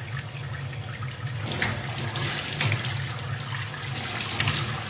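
Water from a tap running into a stainless steel sink and splashing off a young chimpanzee's hands held under the stream; the splashing gets louder about a second and a half in.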